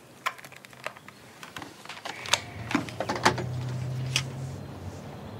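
Light clicks and knocks, scattered irregularly, over a low hum that swells in the middle and fades again.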